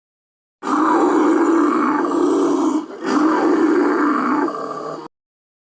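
Werewolf growl sound effect: two long, rough growling roars back to back, with a brief break between them, starting and cutting off abruptly.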